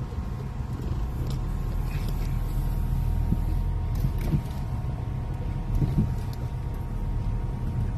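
Car cabin noise while driving: a steady low rumble of the engine and tyres heard from inside the car.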